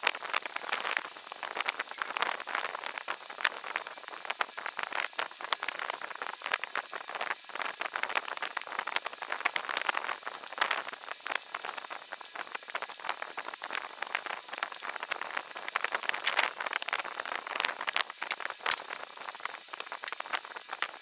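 Scissors snipping through printed transfer paper, with the paper rustling as it is handled: a dense run of crisp crackles and snips, with a few sharper clicks in the last few seconds.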